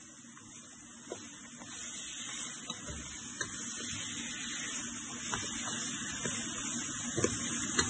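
Chicken pieces sizzling in a pot of dark stew browning as they are stirred, the hiss growing steadily louder, with a few light knocks of the spoon against the pot.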